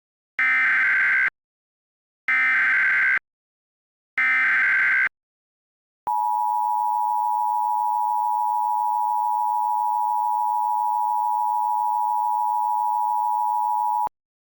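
Emergency Alert System tones: three short bursts of warbling SAME header data, each about a second long and a second apart, then the EAS attention signal, a steady two-tone alarm held for about eight seconds that cuts off suddenly. Together they mark the start of an emergency alert broadcast.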